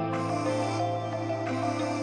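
Background music: soft, sustained instrumental tones with a low held note, in a new-age style.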